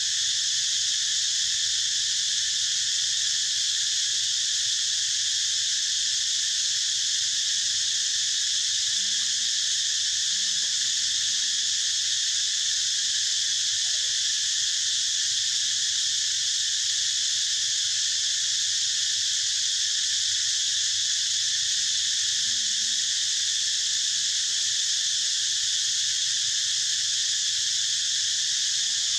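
A steady, high-pitched insect drone from a forest chorus of insects, running without a break.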